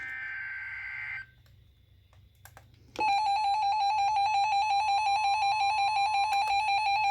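Emergency Alert System alert starting: a short buzzy SAME digital header burst of about a second, a pause of about two seconds, then the EAS attention signal comes in about three seconds in as a loud steady electronic tone.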